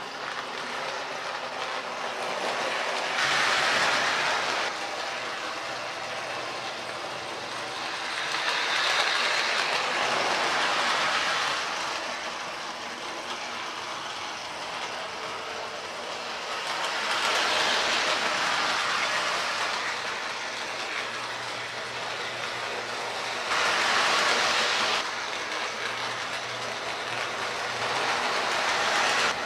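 Lionel Santa Fe U36B O-gauge toy diesel locomotive running laps of a three-rail track: a steady whir of its electric motor and wheels on the rails, with clicking over the track joints. It swells louder about every six or seven seconds as the loco comes round close by.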